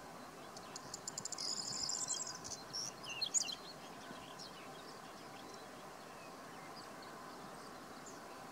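Male whinchat singing one short, scratchy phrase: a rapid run of high ticking notes, then a few sharper chirps, loudest about three seconds in. A steady low background noise runs underneath.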